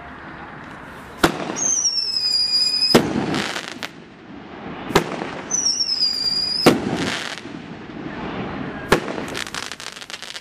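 Dominator 'Patriotic Dominance' 16-shot fireworks cake firing. Sharp bangs come about every two seconds, and two of the shots whistle with a slightly falling pitch for about a second before each ends in a loud bang. Near the end a shot breaks into a quick run of crackles.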